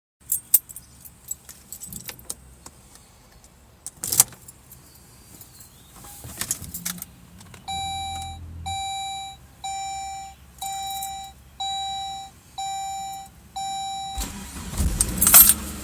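Keys jingling and clicking, then the Saab 9-5's dashboard warning chime sounding seven times, about once a second. About fourteen seconds in, the engine cranks briefly and catches at once, a quick start now that its fuel injectors have been cleaned and rebuilt.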